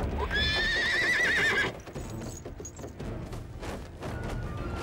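A horse whinnies once, a call of about a second and a half that rises and then quavers, followed by quieter hoofbeats.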